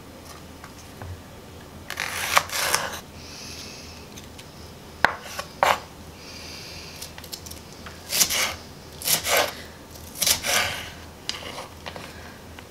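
Kitchen knife slicing a green chili pepper on a wooden cutting board: short crisp cuts and scrapes against the board, coming in irregular bursts, more of them in the second half.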